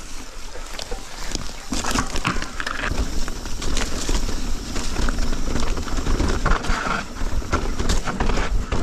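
Mountain bike rolling down a dirt singletrack: tyres on the ground and the bike rattling with many small knocks over roots and bumps, under a steady rumble of wind on the microphone.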